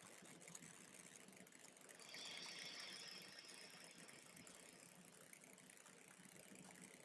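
Near silence, broken by one soft, airy breath drawn through a single nostril while the other is pressed closed, in alternate nostril breathing. It starts about two seconds in, lasts about two seconds, and carries a faint whistle.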